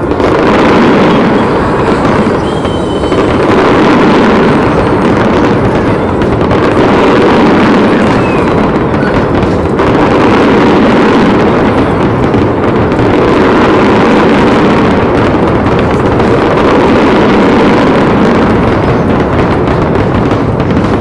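Dense fireworks barrage: many bursts and crackles overlapping into a loud, continuous rumble that swells and eases every few seconds.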